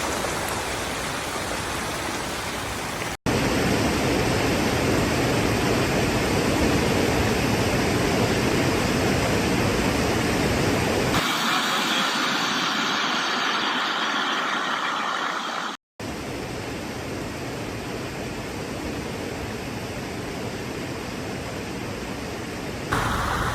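Steady rushing storm noise from heavy rain, wind and flowing floodwater, heard in a run of short clips that cut abruptly from one to the next.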